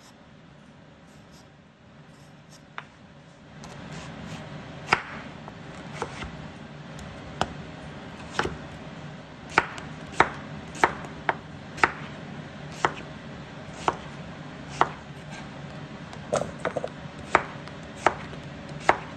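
Kitchen knife chopping peeled winter melon on a wooden cutting board: sharp, irregular knocks of the blade through the flesh onto the board, starting about four seconds in and coming faster in the second half.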